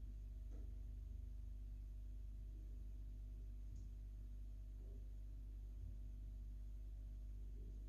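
Quiet room tone: a steady low electrical hum with faint constant higher tones, broken only by a few faint small ticks.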